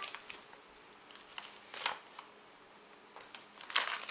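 Foil blind-bag packet crinkling as hands handle it and work it open: one short rustle a little before the middle, then steady crinkling starting near the end.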